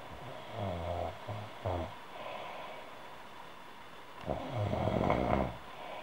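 A woman snoring. One snore breaks into short pulses near the start, and a second, louder and longer snore comes about four seconds in.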